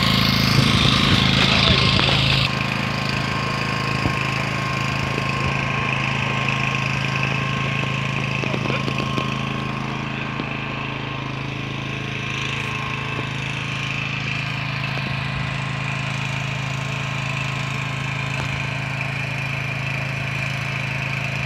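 An engine running steadily at a constant speed, a continuous even hum. It is louder for the first two and a half seconds, then drops a little and stays level.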